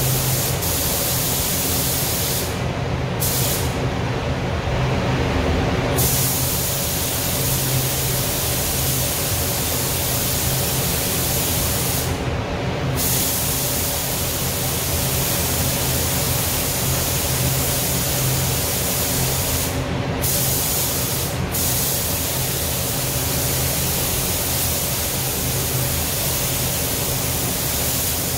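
Loud hiss of compressed air from a handheld air gun and paint spray gun applying waterborne basecoat. It is over a steady low hum from the spray booth's ventilation. The hiss cuts out briefly several times as the trigger is released, for about two seconds once near the start.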